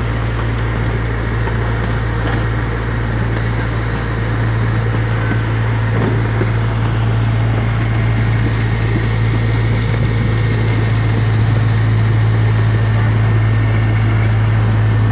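Miniature park train locomotive's engine running steadily under way, a low drone that grows slightly louder over the few seconds, with the rolling noise of the ride beneath it.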